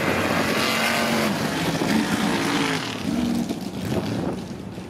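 Pickup truck engines at full throttle under load, racing up a snowy slope. The engine pitch climbs and breaks off several times, and the sound falls away near the end.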